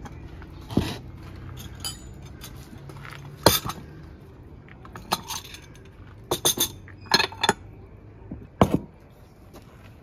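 Ceramic bowls and metal spoons clinking and knocking as they are handled and set down on a wooden table: a string of separate sharp clinks, with quick clusters of two or three about six and seven seconds in.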